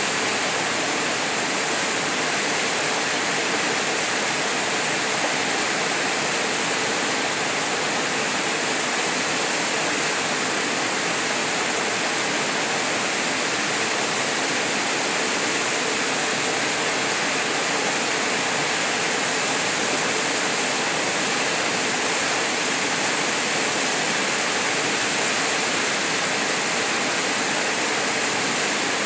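Small waterfall pouring into a plunge pool: a steady, unbroken rush of falling water.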